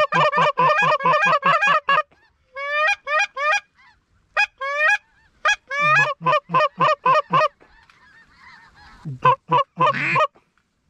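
Goose calls: rapid runs of loud honks and clucks, about six a second, some breaking upward from a low note to a high one, coming in several bursts with short pauses between them.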